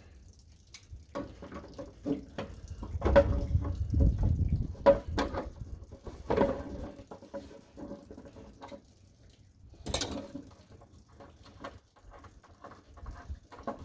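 Metal-on-metal handling at a tractor's ignition switch as an adjustable ignition switch wrench is fitted and worked on it: irregular clicks, clinks and light scrapes, some with a short metallic ring. A low rumble rises from about three to five seconds in.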